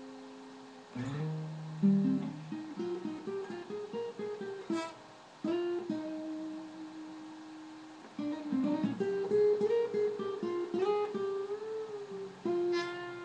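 Acoustic guitar playing a jazzy, semi-improvised passage: quick runs of single plucked notes, a long held note midway, then more runs and a note struck near the end that rings on.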